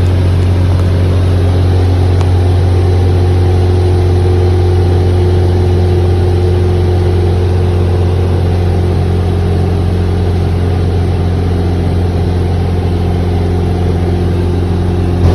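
Light aircraft's piston engine and propeller droning steadily in cruise flight, with no change in pitch or level.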